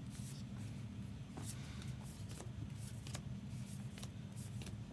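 Trading cards being flicked and slid one over another by hand while sorting through a pile of base cards, a string of short, irregular papery flicks. A steady low hum runs underneath.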